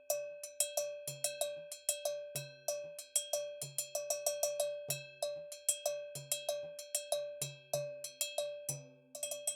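Cha-cha cowbell made by César Alencastre, struck with a stick in a steady repeating pattern of about three strikes a second, each stroke giving a bright metallic ring. A quick flurry of strikes comes near the end.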